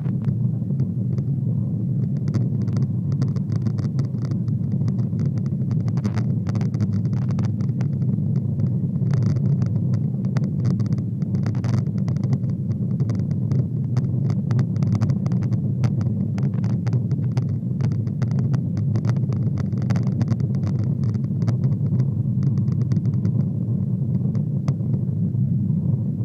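Steady low rumble of Boeing 777 engine and airflow noise heard from inside the passenger cabin, with scattered light clicks and rattles throughout.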